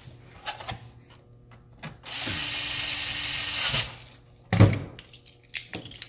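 Cordless electric screwdriver running for about two seconds, driving a screw into a laptop's plastic bottom case. A sharp knock follows about half a second after it stops, with light handling clicks before and after.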